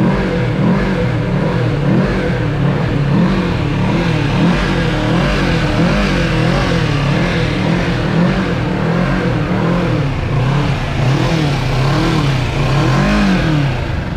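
Kawasaki Z650's parallel-twin engine being revved in repeated throttle blips at a standstill for a sound check, its pitch rising and falling over and over.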